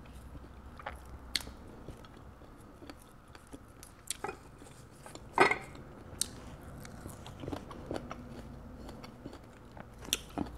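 Quiet, scattered clicks and crackles of Vietnamese coriander (rau răm) leaves being snapped and picked off their stems by fingertips, close to the microphone. The loudest crackle comes about halfway through.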